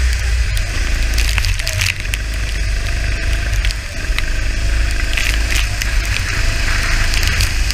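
Onboard sound of a kart at speed on a wet track: a heavy low rumble of wind and engine on the camera microphone, with the kart engine's note faintly underneath and dipping briefly about four seconds in as it goes through a corner. Crackling ticks of water spray and raindrops hitting the camera run throughout.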